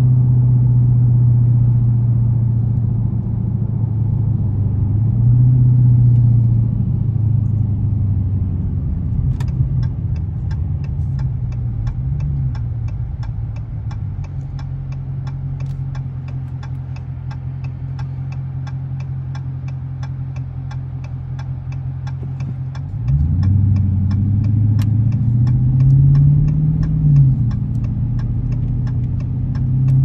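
2021 Dodge Scat Pack's 6.4-litre HEMI V8, heard from inside the cabin, slowing down and idling at a stop, then pulling away about three-quarters of the way through. From about a third of the way in, a turn-signal indicator ticks steadily about twice a second.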